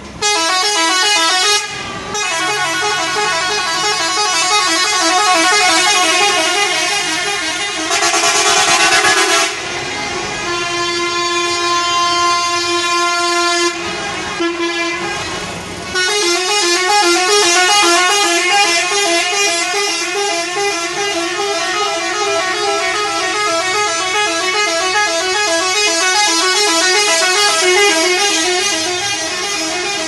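Bus air horns sounding continuously, a rapid run of changing horn notes repeated over and over like a tune, with the pattern changing several times.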